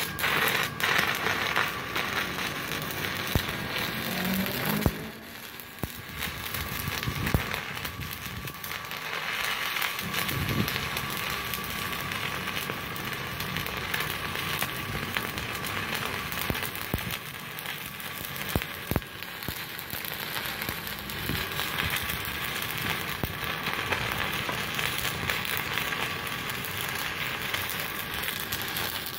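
Stick (MMA) welding arc from a Multipro TIG 200A-SA DC inverter welder, burning a 4 mm electrode at about 95 amps: a continuous crackling hiss. It breaks off briefly about five seconds in, then runs on and cuts off at the end.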